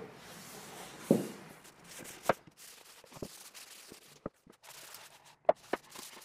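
Wooden cutting boards handled on a stone countertop: one heavy knock about a second in as a board is set down, then several sharper knocks and clicks as boards are lifted and moved. Faint rubbing of a cloth wiping excess oil off the wood runs between the knocks.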